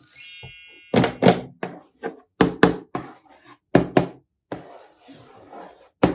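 A short sparkly chime, then a series of sharp knocks, mostly in quick pairs, as hard toy pieces or packaging are tapped or set down. A soft rustle follows near the end.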